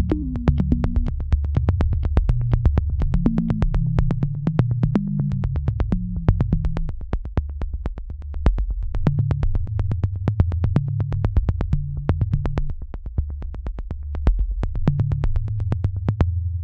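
Background electronic music: synthesizer with a steady, sharp beat about three times a second over a low, shifting bass line. The beat stops near the end and the bass fades away.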